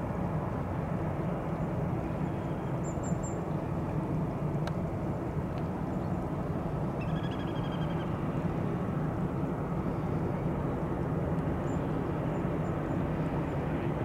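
Airbus A319 airliner taxiing at idle power, its jet engines a steady low rumble. A few short bird chirps over it.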